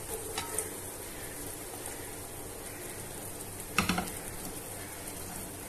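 Low, steady sizzle of diced carrots frying in oil in an aluminium pot as chopped green bell peppers tumble in, with a few light clicks near the start. A short metallic clank about four seconds in.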